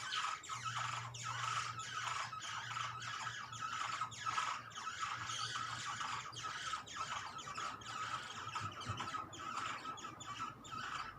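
Grey shrike-thrush nestlings begging in the nest: a dense, continuous chorus of rapid, short, harsh calls.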